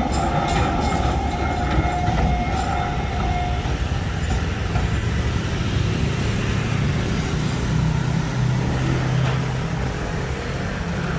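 Huwei sugar factory's narrow-gauge sugarcane train rolling past, its wagons clicking over the rails with a steady high squeal for the first few seconds. The squeal fades, leaving a low steady hum.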